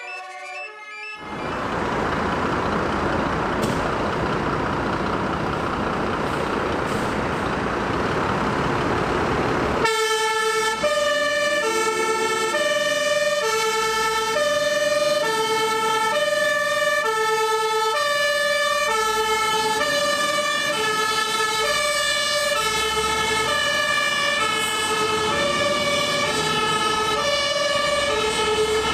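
Dutch fire engine's two-tone siren, switching steadily between a high and a low pitch about every two-thirds of a second as the truck sets off on an urgent call. It starts about a third of the way in, after a steady rushing noise.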